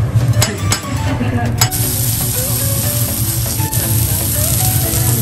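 Beef, chicken, salmon and shrimp sizzling on a steel teppanyaki griddle, with a few sharp clicks of metal spatulas in the first second and a half. The sizzling gets louder and steadier from just under two seconds in.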